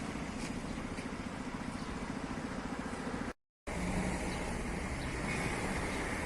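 Tuned car engine idling with a fast, even throb. About three seconds in the sound cuts off abruptly, and a second car engine follows, running steadily.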